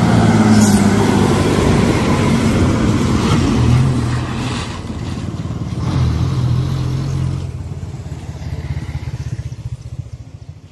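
Ashok Leyland Comet bus's diesel engine running as the bus drives past and pulls away, loud at first, then dipping and rising again about halfway through. The engine sound fades out over the last few seconds.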